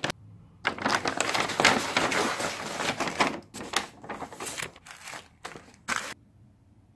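Paper gift bag and plastic packaging rustling and crinkling as hands rummage through them, starting about a second in and stopping abruptly about six seconds in.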